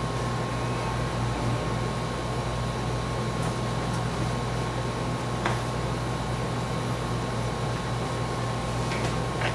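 Steady machine hum and whir, like a fan or air-conditioning unit running, with a faint steady high whine over it and a faint click about halfway through.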